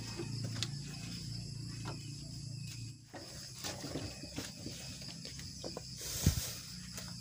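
Light rustling and small clicks of large leaves being handled and laid into a metal wok, over a steady high insect trill. A single heavy thump a little after six seconds in is the loudest sound.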